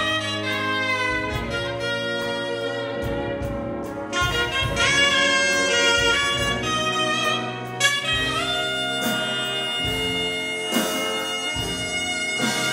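Big band playing jazz live, a saxophone soloing in front over the rhythm section and horns, with drum hits underneath.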